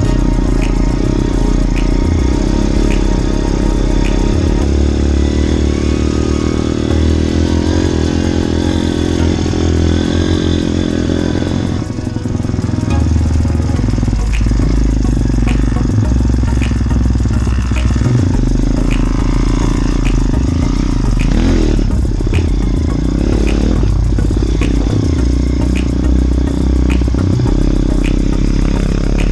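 Motorbike engine running continuously while riding, its low note shifting every few seconds with the throttle.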